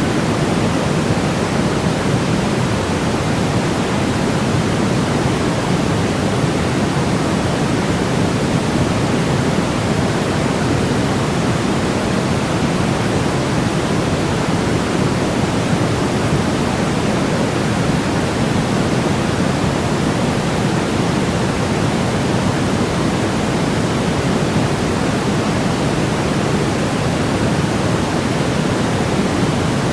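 Steady, unchanging electronically generated sleep-aid noise: an even hiss with no events, weighted toward the low end in the manner of pink noise rather than bright white noise.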